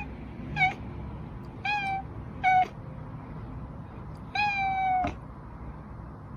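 Domestic cat meowing four times in short, high mews, the last one longer and drawn out.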